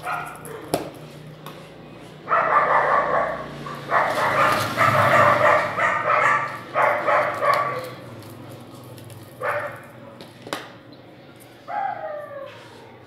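A dog whining in several bursts of a second or two, the last one falling in pitch, with a couple of sharp clicks between them.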